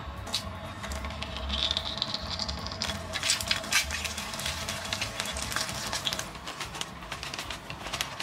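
An egg frying in hot oil in a small nonstick pan: a crackling sizzle that starts about three seconds in, with frequent sharp pops.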